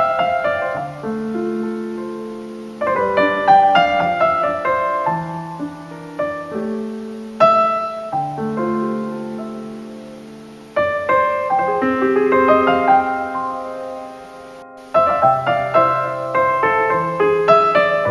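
Solo piano music: a slow piece played as phrases of struck notes and chords that ring and fade away, a new phrase beginning every few seconds.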